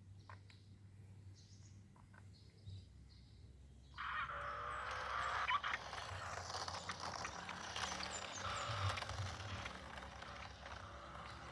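Small electric motor and gears of an RC toy minibus running, with a clicking, rattling noise that starts suddenly about four seconds in and carries on to near the end. Faint bird chirps are heard before it starts.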